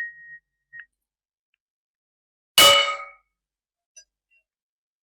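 A metal foley pipe is struck once about two and a half seconds in, giving a sharp clang that rings briefly and dies away. At the start, the ringing tone of the previous strike fades out.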